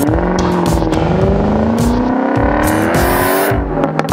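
Supercharged 5.0-litre V8 of a stock-exhaust 2012 FPV GT 335 accelerating hard, its note rising steadily through the gear, then dropping as it shifts up near the end. It is heard from a microphone at the rear of the car by the exhaust.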